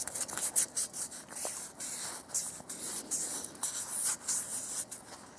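Sandpaper rubbing on a metal coolant-pipe neck in quick, short back-and-forth hand strokes, a scratchy hiss. The hose sealing surface is being smoothed of corrosion ridges.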